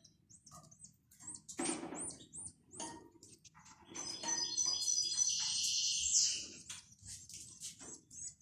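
Baby sparrows chirping: short, high cheeps in quick succession, thickening into a run of continuous shrill calls about four seconds in. A brief rustling noise comes about two seconds in.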